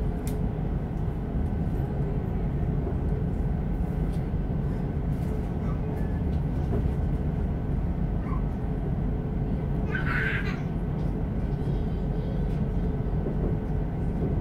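Steady rumble of a passenger train running, heard from inside the carriage, with a faint steady whine under it. A brief, higher sound stands out about ten seconds in.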